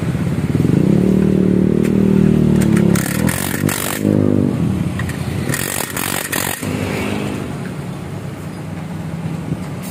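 Cordless drill-driver whirring in several bursts, the longest about two and a half seconds, while the mounting bolts of a scooter's exhaust muffler are driven in, with a steady low hum underneath.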